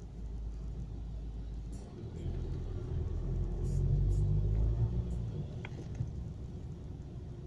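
Car on the move: a steady low engine and road rumble that swells louder for a few seconds in the middle.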